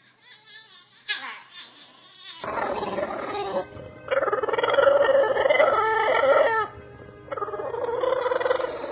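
A dog howling in three long drawn-out calls, the middle one the longest and loudest, after a couple of seconds of short, soft noisy sounds.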